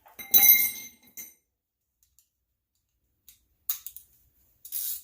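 Steel wrench and cheater pipe clanking together with a short metallic ring about half a second in, followed by a couple of brief clicks and scrapes near the end.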